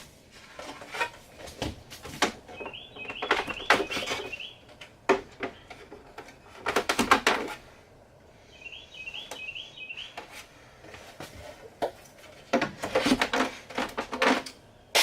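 Scattered clicks, knocks and rattles of hands working on refrigerator door and hinge hardware, in three busier bursts. A bird chirps a short warbling phrase twice in the background.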